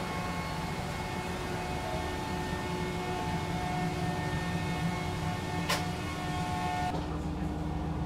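Steady low rumble and hum of a diesel railcar heard from inside the train, with a few steady tones riding over it. A single sharp click comes a little over halfway through, and the higher hiss drops away near the end.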